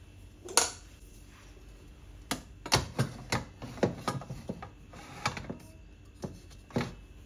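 Stainless steel pots and their glass lids clinking and knocking as they are handled and stacked on a cabinet shelf: about a dozen irregular sharp knocks, each with a short ring.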